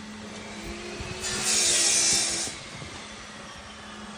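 A loud burst of hissing lasting about a second and a half, starting just over a second in, over a steady low hum.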